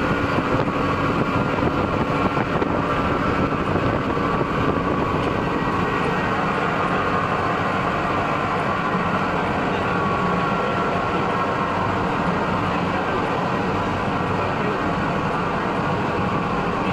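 Industrial hydro extractor (centrifugal laundry spin dryer) with its stainless-steel basket spinning, a steady mechanical whirr with no change in pitch or level.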